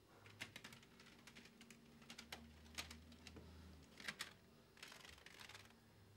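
Plastic CD jewel cases clicking and clattering against each other in a wire CD tower as they are thumbed through and pulled out, in irregular small clicks with a quick cluster about four seconds in.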